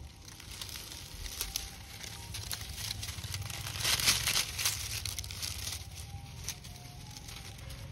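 Dry leaf litter crunching and rustling underfoot as a macaque walks over it, loudest about four seconds in.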